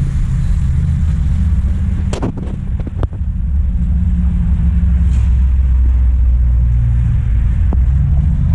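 Steady low rumble throughout, with a few sharp knocks about two and three seconds in.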